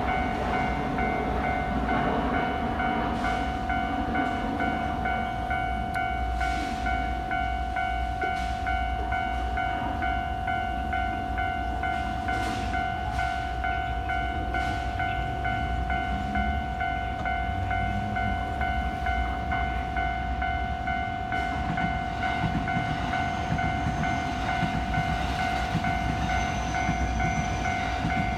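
Japanese level-crossing alarm ringing on without a break, a steady pitched electronic bell, while JR Kyoto Line trains rumble past. The barrier stays down because train after train keeps coming: the mark of a crossing that hardly ever opens.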